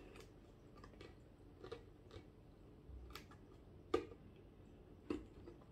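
Fingers and fingernails picking and peeling at the sealed top of a cardboard LOL Surprise toy box: faint scattered ticks and scratches, the loudest about four seconds in.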